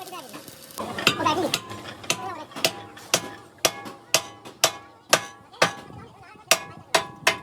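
Hammer striking steel in steady blows, about two a second, each ringing briefly, with a short pause near the end.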